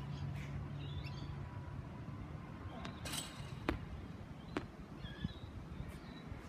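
Medicine ball being thrown overhead and bouncing on a hard tennis court: several sharp thuds a second or so apart, the loudest about three seconds in. Birds chirp briefly in the background.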